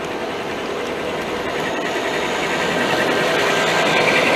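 Large-scale model train running close by: the motor-and-gear hum of two battery-powered Aristo-Craft Dash 9 model diesels, then steel-wheeled coal hoppers rolling on the rails, growing steadily louder.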